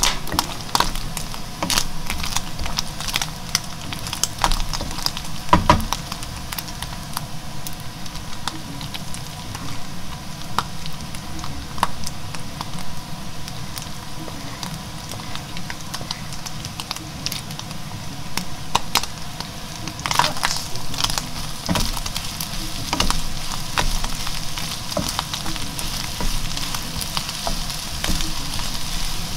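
Minced pork sizzling as it stir-fries in a frying pan, with frequent scrapes, clicks and knocks of a wooden spatula against the pan as it is stirred.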